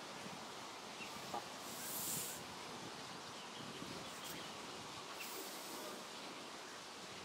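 Faint scattered poultry calls over a steady outdoor background noise, with a brief louder hiss about two seconds in.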